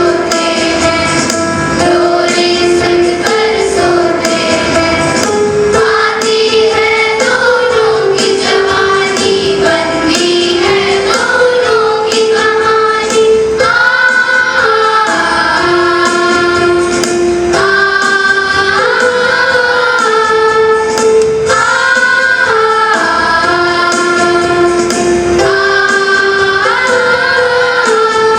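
A song: a high singing voice carrying a melody over instrumental backing with a regular percussion beat.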